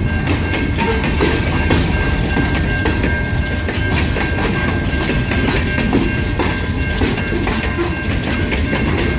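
A long freight train's cars rolling past, with a steady rumble and the wheels clicking over the rail joints. A thin, steady high whine runs through it.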